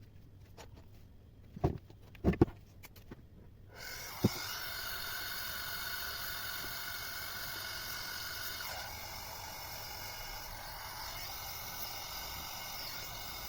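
A few sharp knocks, then from about four seconds in a steady hiss from a gas brazing torch burning while the refrigerator's copper pipe joints are brazed.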